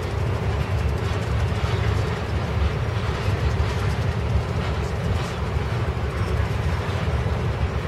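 Intermodal freight train of trailer-laden flatcars rolling past: a steady rumble of steel wheels on rail.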